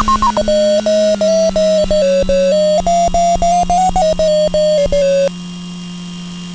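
Short electronic beeps, about three a second, stepping between a few pitches, over the steady drone of an RC plane's electric motor. The drone drops slightly in pitch about a second in as the throttle comes back. The beeps stop about five seconds in, leaving the motor drone alone.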